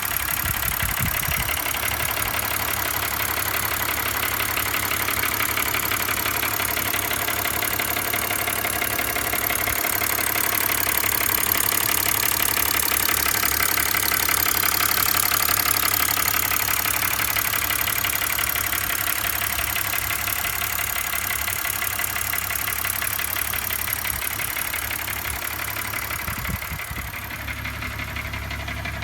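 2005 BMW 325i's M56 straight-six engine running with a steady, rapid rattle.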